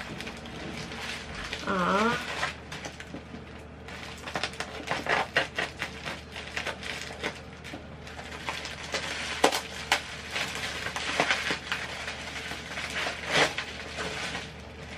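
Plastic parcel packaging being handled and unwrapped by hand, crinkling and rustling with many irregular sharp crackles. A woman gives a short wavering hum about two seconds in.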